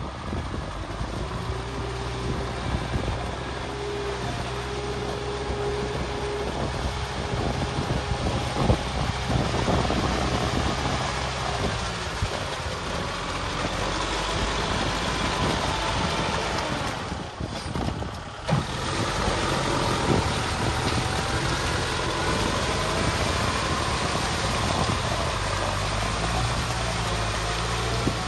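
Diesel engine of heavy machinery running steadily with a low, even engine note. The sound briefly drops away about seventeen seconds in.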